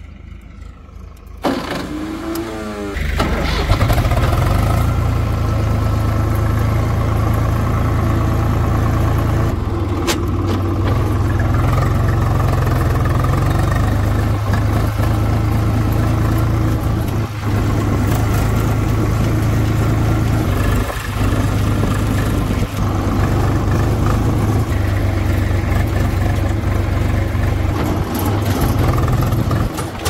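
A heavy diesel engine starts about two seconds in and then runs loud and steady, with a few brief dips.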